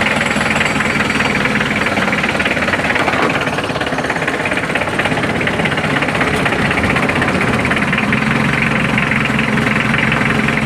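Mitsubishi 4D56 four-cylinder diesel engine running at a steady idle with diesel clatter, its no-start fault traced to a burnt fuel shut-off valve.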